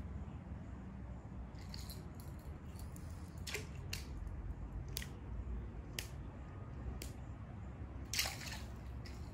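Fishing lure being retrieved through water with rod-tip twitches while the reel is cranked: faint sharp clicks about once a second, with one louder splash-like click near the end.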